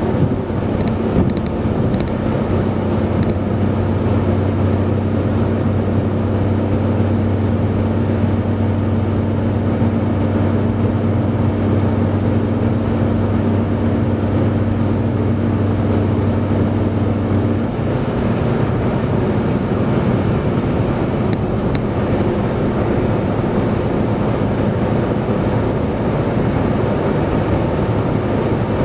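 Steady road and tyre noise with engine hum heard from inside a car's cabin at highway speed. A low droning hum that runs beneath it stops abruptly a little over halfway through, and a few faint clicks come in the first few seconds and again later.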